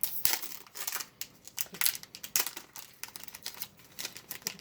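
Foil wrapper of a Pokémon card booster pack crinkling and being torn open, with cards rustling and clicking against each other in quick irregular bursts.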